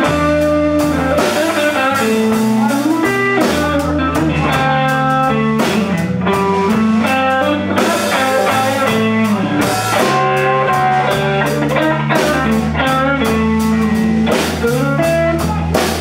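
Live blues band playing: a Stratocaster-style electric guitar picks single-note lines over a drum kit and low bass notes.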